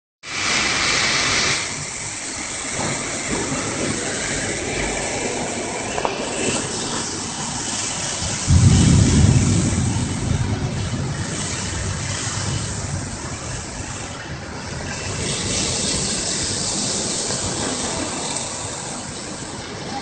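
Cyclone-force wind and heavy rain lashing coconut palms and trees: a steady, loud rushing hiss, with a louder, deeper gust about eight and a half seconds in that lasts a couple of seconds.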